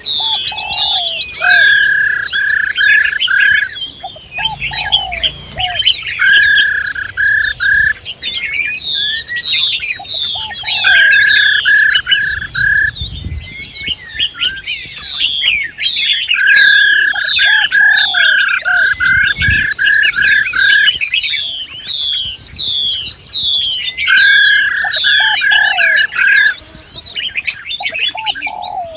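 Several birds calling at once: dense high chirps and whistles, with a run of about five even notes repeated every few seconds and short lower notes between.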